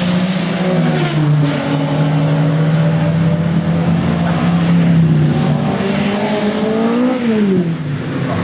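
Saloon race car engines running at high revs, one engine note holding steady, then rising and dropping sharply near the end.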